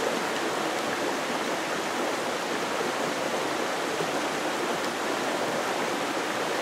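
Steady rushing of river water flowing past, an even noise that holds constant throughout.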